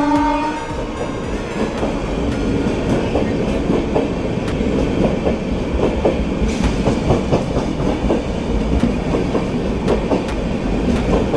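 Horn of a WAP-7 electric locomotive ending within the first second, then the train running on the track with its wheels clattering over rail joints.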